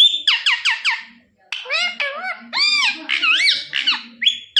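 Parrot calling: a quick run of four falling whistled notes, then after a short pause a string of squawky, warbling calls that bend up and down in pitch.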